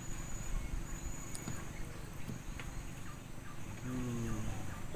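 Insects trilling in a high, steady tone that breaks off and resumes, over a low outdoor rumble. A short low call or distant voice comes in about four seconds in.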